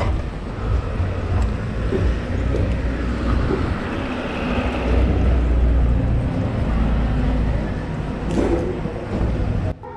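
Motorcycle running on the road, a steady low rumble of engine and wind noise on the rider's microphone, cutting off just before the end.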